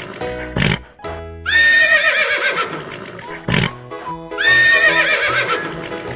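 Horse whinnying twice, a long wavering call that falls in pitch, first about a second and a half in and again about four and a half seconds in, over background music with a steady beat.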